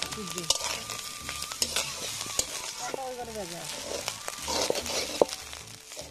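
Rice stir-fried with carrot, capsicum and cauliflower in hot oil in a kadai. It sizzles steadily, while the spatula scrapes and knocks against the pan in quick irregular clicks.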